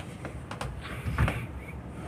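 Back massage: hands rubbing and patting on a person's back, with a few short soft knocks, the loudest about a second in.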